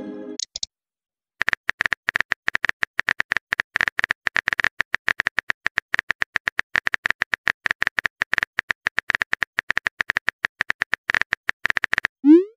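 Smartphone keyboard typing sound effect: a rapid, even run of key clicks for about ten seconds, starting about a second and a half in. It ends with a short rising whoosh as the message is sent.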